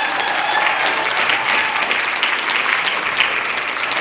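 Audience applauding in a hall: steady, dense clapping from many hands, with some cheering.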